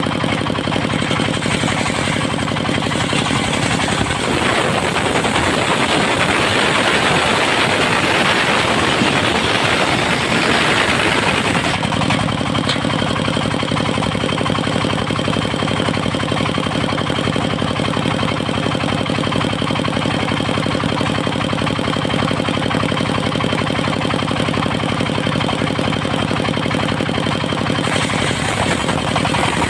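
Engine-driven mobile circular sawmill running steadily; from about four seconds in to about twelve seconds the blade cuts through a teak log, adding a loud, noisy cutting sound over the engine, which then runs on alone.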